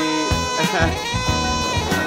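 Soundtrack music: a jazzy swing tune with horns over a steady beat.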